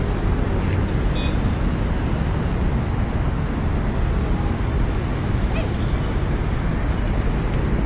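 Steady road traffic from the multi-lane road below: a continuous low rumble of passing cars and vans.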